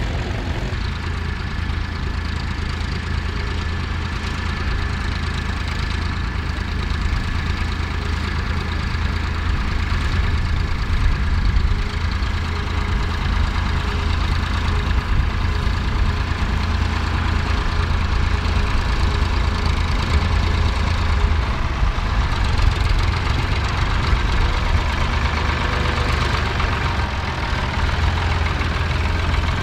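Ford 4100 tractor's three-cylinder diesel engine running steadily under load while pulling a plough.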